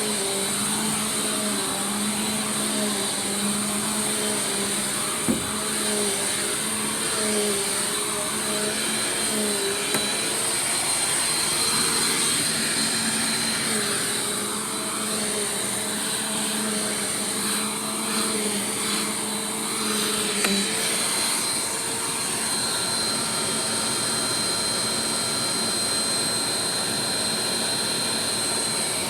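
Bissell PowerForce Compact Turbo upright vacuum cleaner running steadily, a high whine over its motor hum, the hum wavering slightly in pitch, with a few brief knocks.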